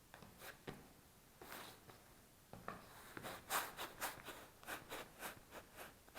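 Bubble wrap being handled, crinkling and rustling in a string of short scrapes that come thick and fast about halfway through.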